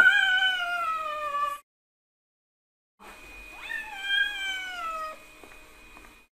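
Cat giving two long drawn-out meows, each sliding down in pitch. The first stops about a second and a half in; after a pause, the second starts with a quick rise and then falls away.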